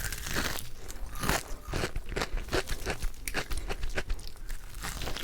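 Close-up crunching and chewing of crispy fried chicken: repeated crackly bites, a few a second.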